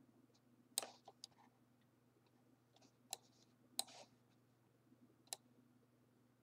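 Computer mouse clicking, about half a dozen short clicks at irregular intervals over near silence.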